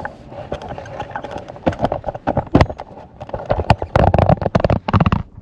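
Camera handling noise as the camera is moved and set up: a run of irregular knocks, clicks and scuffs that gets busier and louder near the end.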